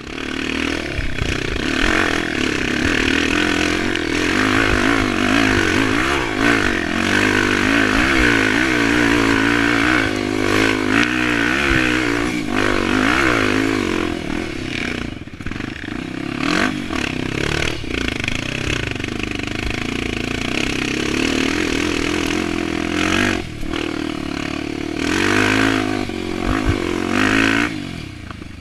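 Honda XR 250 Tornado's single-cylinder engine, bored out to 280cc and fitted with a ProTork Powercore 3 exhaust, running hard while riding off-road. Its pitch keeps rising and falling as the throttle opens and closes, with brief drops in between.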